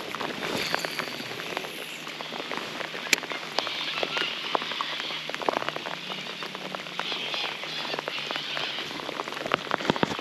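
Pouring rain falling on a river's surface: a steady hiss of rain with many sharp single-drop taps scattered through it.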